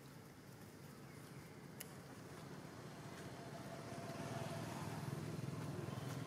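Low engine rumble of a passing motor vehicle, growing louder from about halfway through, with a faint click near the start.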